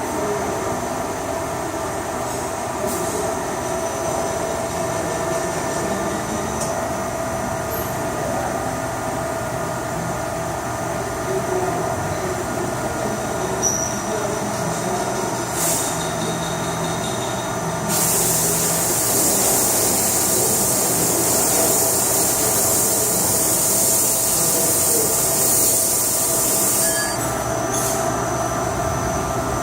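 CNC machine's axis drives running as the three axes move, a steady mechanical hum with several held whining tones. About two-thirds of the way in a loud high hiss starts and runs for around nine seconds before cutting off, with a few short clicks shortly before it.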